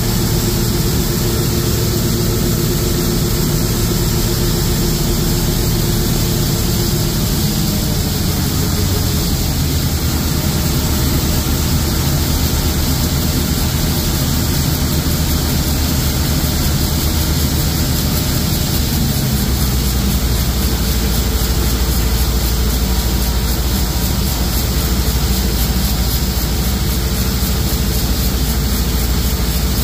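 John Deere 6620 Titan II combine running under load while shelling corn: the six-cylinder diesel engine and threshing machinery make a loud, steady drone. Its low engine note shifts about eight seconds in and again near twenty seconds.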